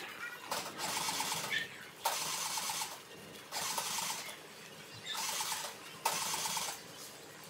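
Bath brush scrubbing a soapy, wet dog's coat in repeated strokes of a second or so, each a rasping hiss with short pauses between.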